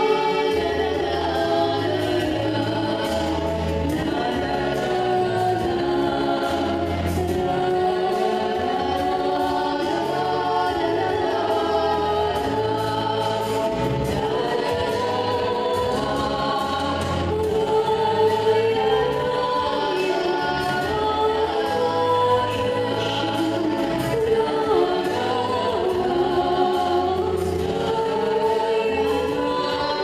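Three girls singing together in harmony through microphones, over an instrumental accompaniment with a repeating low bass line.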